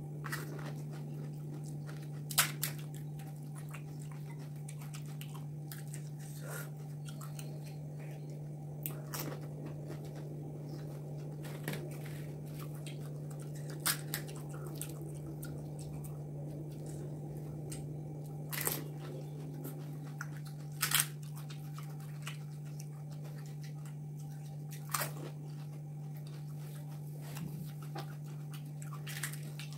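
Close-up eating of pani puri: crisp hollow puri shells cracking and crunching as they are bitten, with chewing between, about nine sharp crunches spread out over the stretch. A steady low hum runs underneath.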